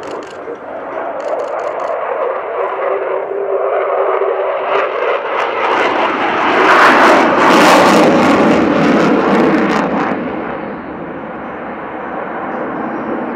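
A Sukhoi Su-27P fighter's twin AL-31F afterburning turbofans during a low display pass. The jet noise swells to its loudest about seven seconds in, sounding harsh and crackling at the peak, then eases off.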